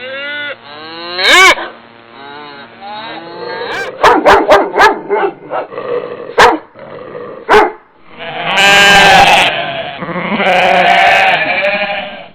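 Animal calls in quick succession: several arching pitched calls, a rapid run of short sharp calls in the middle, then two long loud calls near the end.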